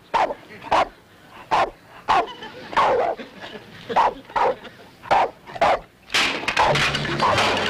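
Bulldog barking repeatedly in short, sharp barks, about two a second, stopping near the end.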